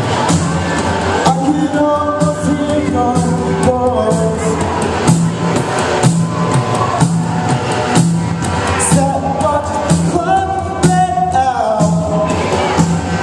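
A band playing a song: a steady low beat under a sung vocal line, which comes in about a second and a half in and again near the end.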